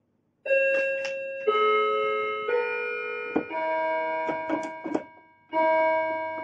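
Background music on keyboard: held chords, a new one struck about once a second, with short sharp accents between them and a brief break near the end.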